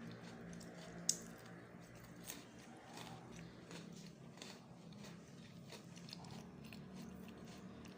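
Crisp lengua de gato butter cookies being bitten and chewed close to the microphone: a sharp snap about a second in, then many small crunches.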